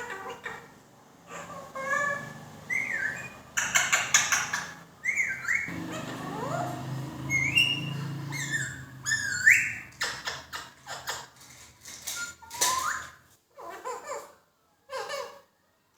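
Pet parrot whistling a series of short rising notes, then giving a string of short, sharp chattering calls that sound like mimicked words.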